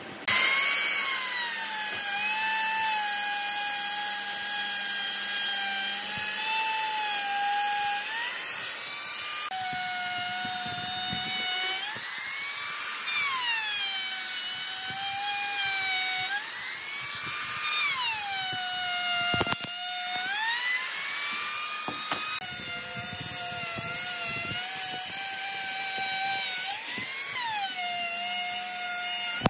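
Makita trim router running at high speed, a high whine whose pitch sags and recovers again and again as the bit takes load cutting into a wooden disc.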